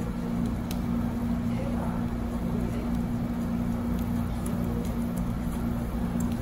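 A steady low hum over constant background noise, with a few faint clicks.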